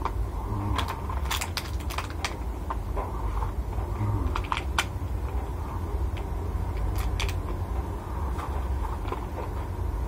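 Eating by hand from a clear plastic food box: irregular sharp clicks and crackles from the plastic box being handled and from chewing, over a steady low hum.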